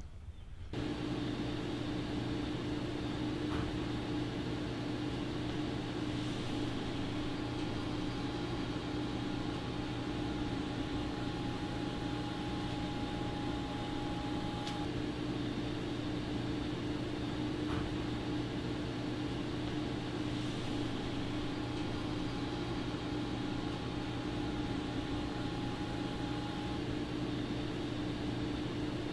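Steady mechanical hum with a faint hiss, holding a low drone and a higher fixed tone, with a few faint ticks over it.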